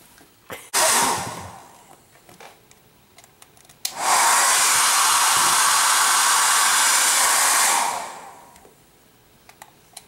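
A loud, steady rushing hiss that holds for about four seconds and then dies away, preceded about a second in by a shorter burst of the same hiss that fades out. Small clicks and taps fall between them.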